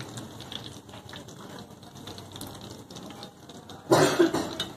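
Fish pieces shallow-frying in hot oil in a pan, the oil sizzling with a fast, dense crackle of small pops. A brief louder clatter about four seconds in.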